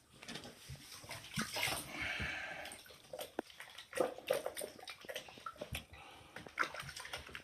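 Soapy water splashing and sloshing in a plastic bucket as hands scrub a wet puppy, with a brief whimper from the puppy about two seconds in.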